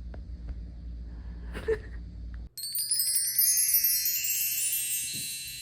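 A steady low hum with a few faint clicks, cut off suddenly about two and a half seconds in by a bright, shimmering chime flourish that slowly fades.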